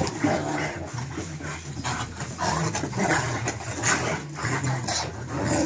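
Two Bouvier des Flandres dogs play-fighting: irregular dog vocal noises and scuffling, in quick uneven bursts.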